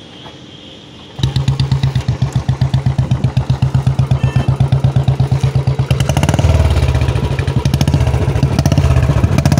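Royal Enfield Bullet 350's single-cylinder engine firing up about a second in and thumping at idle through a short-bottle ("chota punjab") silencer, with an even, rapid beat; about six seconds in it picks up and gets louder as the throttle is opened.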